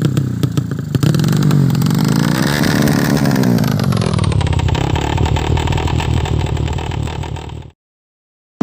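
Tuned drag-racing motorcycle engine revving, its pitch rising and falling a couple of times, then cutting off suddenly near the end.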